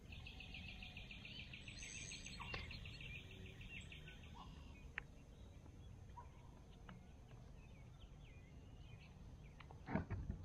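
Birds calling: a rapid, evenly pulsed trill for the first three seconds or so, then scattered short chirps, over a faint low rumble of wind. A few louder knocks come near the end.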